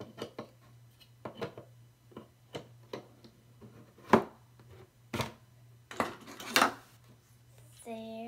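Clicks and knocks of hard plastic toy parts being handled and fitted together: a plastic stick pushed into a plastic base, then clear plastic cups handled. The sharpest knock comes about four seconds in.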